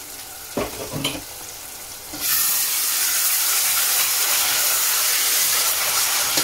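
Chopped onion and tomato frying in oil in a stainless steel saucepan, stirred with a metal spoon. A few light knocks come first, then about two seconds in the sizzle jumps suddenly louder and holds as a steady hiss while the spoon stirs.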